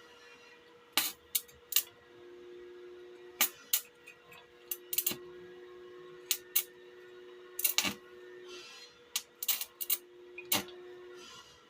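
Small metal parts being handled, clinking and knocking together in about a dozen sharp clicks at irregular intervals, over a steady faint hum.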